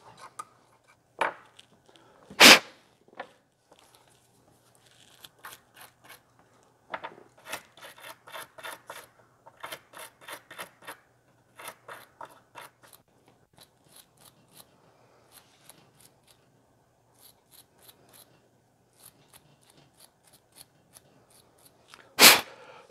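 Metal dental pick scraping and clicking in the grooves of a brass fuel filler cap insert, clearing out the charred remains of the old rubber gasket so a new one can seat flat. The pick makes short scratchy strokes in quick runs. There are a few louder sharp knocks, about two and a half seconds in and again near the end.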